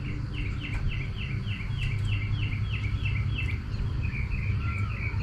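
A songbird singing: a run of about a dozen down-slurred notes at about four a second, then, after a short pause, a second series of shorter notes. A steady low hum sits underneath.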